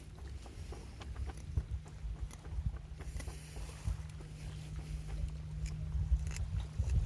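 Wind rumbling on the microphone, with scattered light clicks and ticks over it.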